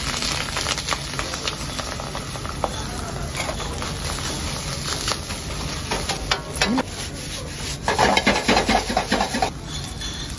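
Egg and rice sizzling in a wok over a gas burner, a metal ladle clicking and scraping against the wok, with a steady low rumble underneath. About eight seconds in, vigorous stir-frying: the ladle scrapes and clatters loudly against the wok as the rice is tossed for about a second and a half.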